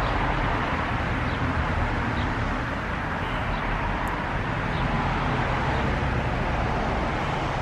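Steady road traffic noise, a continuous rush of passing cars from a street.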